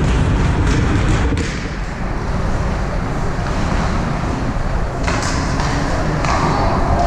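Ice hockey rink ambience: steady reverberant arena din with a few sharp knocks, one near the start and two more a little after five and six seconds in.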